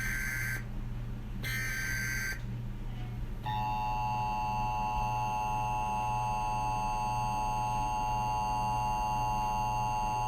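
Emergency Alert System signal: two roughly one-second bursts of the SAME digital header data, about a second apart. About three and a half seconds in, the steady two-tone attention signal starts and holds. A steady low hum runs underneath.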